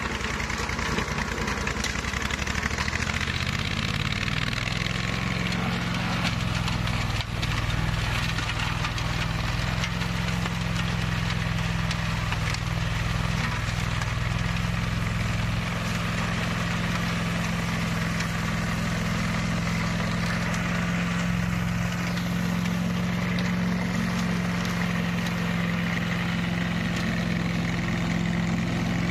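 Flail-shaft grass mower running steadily. Its engine speeds up about four seconds in and then holds a steady pitch.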